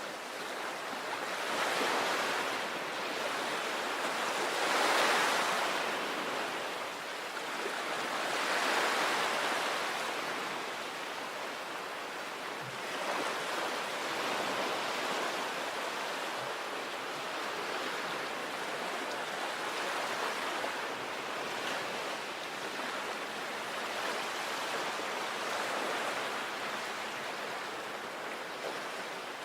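Sea waves breaking and washing up the shore, in swells a few seconds apart for the first ten seconds or so, then a steadier wash.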